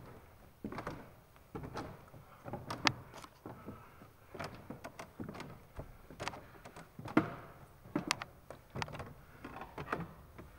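Irregular scuffing footsteps and knocks of someone climbing narrow stone stairs, mixed with rustling from a handheld camera. A few of the knocks are sharper than the rest.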